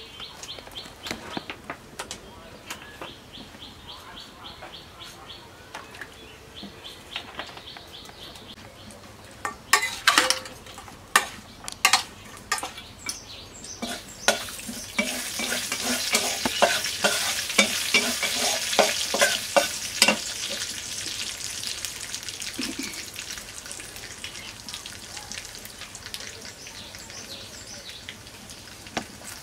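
Seeds sizzling in hot oil in an iron kadai, stirred with a metal spatula that knocks and scrapes against the pan about ten seconds in; the sizzle then swells loudly and slowly dies down. Birds chirp over and over in the first part.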